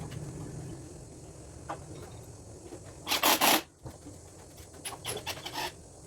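Excavator engine running with a low steady hum, and a loud rasping scrape about three seconds in lasting half a second, followed by a few lighter scrapes and clicks.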